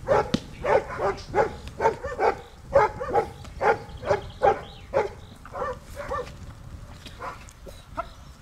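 Giant Schnauzer barking rapidly and repeatedly at a protection-training helper, about two to three barks a second. The barks grow fainter and more spaced out after about five seconds.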